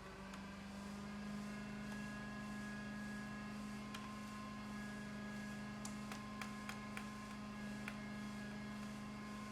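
Steady electrical hum, pitched low with higher overtones, under a few small sharp clicks from handling laptop parts, most of them in a cluster past the middle.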